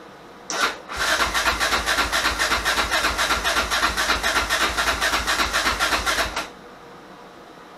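Yamaha Raptor 660's rebuilt single-cylinder four-stroke engine, bored to 686, being cranked on its electric starter without catching. It is an even, rhythmic pulsing as it turns over, lasting about five and a half seconds before it cuts off sharply.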